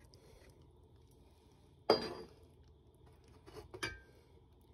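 Glass canning jar clinking against a metal pot as canned carrots are tipped and scraped out of it: one sharp clink about two seconds in, then a few lighter clinks near the end.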